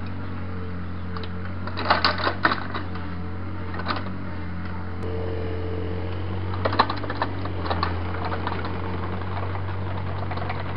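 Takeuchi mini excavator's diesel engine running steadily, with bursts of rattling clicks about two seconds in and again near seven seconds as the machine pushes backfill soil and stones.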